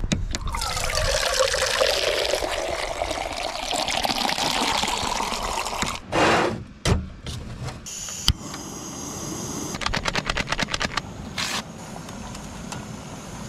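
Water running from a plastic tap on a vehicle's water tank into a Jetboil cup, splashing for about six seconds with a tone that climbs slowly as the cup fills. It is followed by sharp clicks, a steady high hiss and a quick run of ticks.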